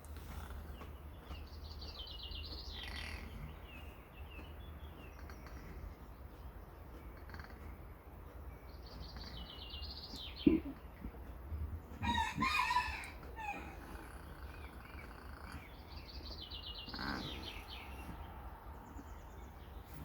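A rooster crows once, for about a second and a half, around twelve seconds in, with short trilled bird calls every several seconds and a single sharp knock just before the crow.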